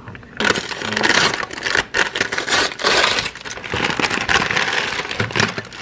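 Brown kraft-paper mailer crinkling and rustling loudly as it is torn open and pulled off the items packed inside. The sound starts about half a second in and dies down near the end.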